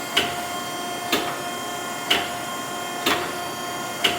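Okamoto ACC-124N hydraulic surface grinder running with no coolant, its wheel spindle and hydraulic pump giving a steady hum with several held tones. A short sharp sound comes about once a second as the reciprocating table makes each pass, four or five times in all.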